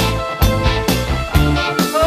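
A pop-rock song playing, with a steady drum beat, bass and sustained instrument chords.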